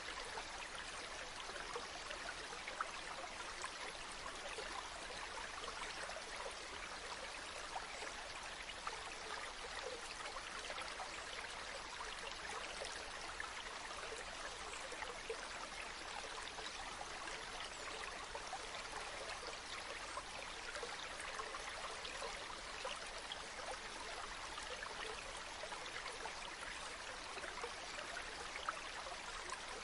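River stream flowing over rocks: a steady rush of water with many small splashes and gurgles.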